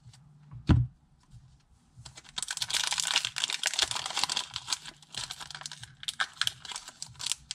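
Hands handling Pokémon trading cards and their packaging on a tabletop: a single thump just under a second in, then from about two seconds in a dense run of crisp crackling and small clicks.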